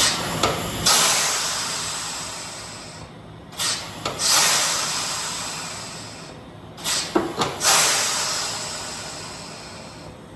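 Three bursts of loud hissing about three and a half seconds apart, each opening with a short click or knock and fading away over two to three seconds.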